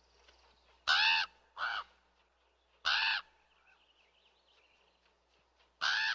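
Raven calling: a pair of calls about a second in, a single call near three seconds, and another starting near the end. Each call arches up and down in pitch.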